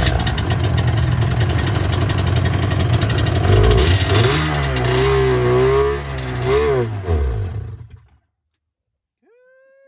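1995 Sea-Doo SPX jet ski's two-stroke twin engine running after a start, revved up and down a few times, then dying about eight seconds in. It is running only on the primed fuel, since the fuel had not been turned on.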